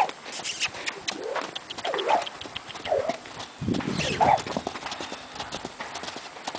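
A horse's hooves striking the arena footing as it moves loose, with several short pitched calls in between, the loudest about four seconds in.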